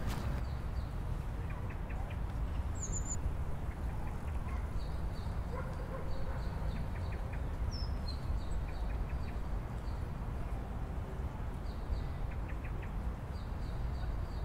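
Birds chirping in short, repeated high calls over a steady low rumble of outdoor ambience.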